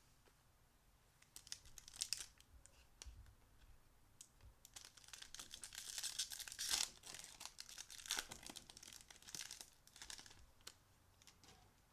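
Foil wrapper of a Topps baseball card pack being torn open and crinkled by hand: scattered crackles, with a denser, louder stretch of tearing around the middle.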